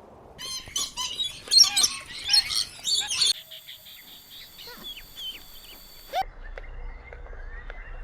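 Birds chirping and calling in quick, high notes, in several short clips cut one after another. The sound changes abruptly twice.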